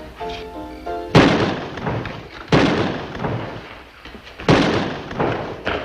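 Three gunshots, about a second and a half and then two seconds apart, each fading out over about a second, with soft background music before the first.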